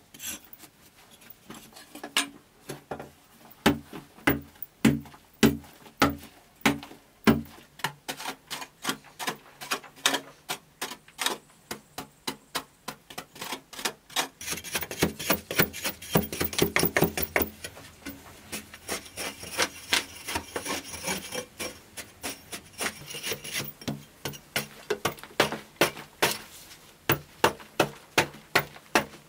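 A hand hoe chopping and scraping into soft rock and dry earth: repeated strikes about two a second, with a quicker run of rasping scrapes around the middle.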